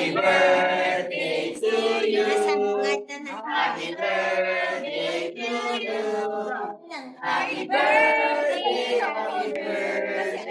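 A group of people singing together, several voices in unison with held notes and short breaks between phrases.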